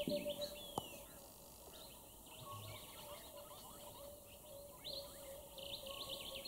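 Faint chorus of several wild birds chirping and whistling in overlapping short phrases, with a steady faint tone running beneath.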